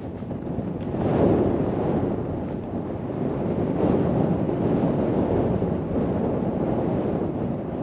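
Strong wind buffeting the microphone, a rushing roar that swells in gusts about a second in and again around four seconds.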